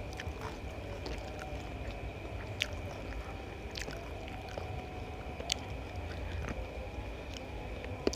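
Close-miked eating by hand: chewing with soft wet mouth and finger sounds as spicy fried rice vermicelli is picked from the plate and eaten, with four sharp clicks spread through. Underneath are a steady low hum and a faint steady high tone.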